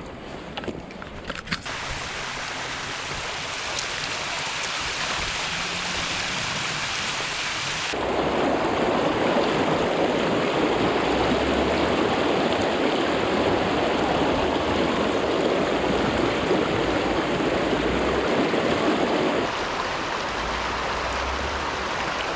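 River water rushing steadily around the wading angler, getting louder about eight seconds in and easing back near the end.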